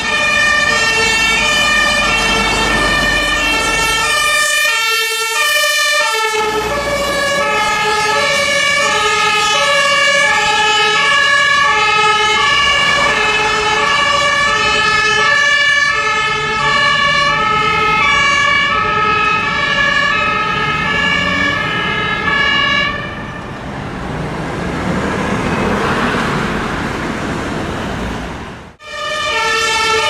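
Two-tone sirens of German fire-service vehicles, the alternating high-low "tatütata" of the Martin-Horn, sounding as emergency vehicles drive by. Near the end the sirens fade and the rush of a passing vehicle swells, then after an abrupt break the sirens start again.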